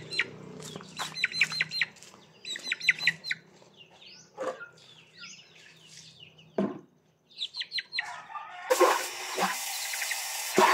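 Brahma chicks peeping in quick runs of short, high chirps. About nine seconds in, water starts rushing steadily from a tap into a plastic bucket.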